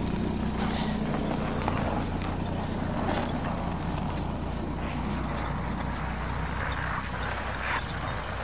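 UAZ-452 off-road van's engine running low as it crawls past over snowy, rutted ground and pulls away, growing fainter after about two seconds.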